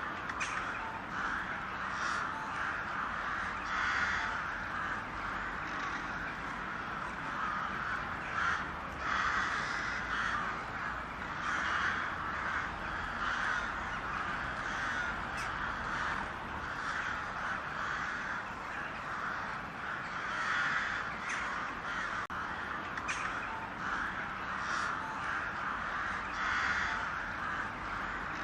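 Crows cawing: repeated calls every second or two, overlapping with one another.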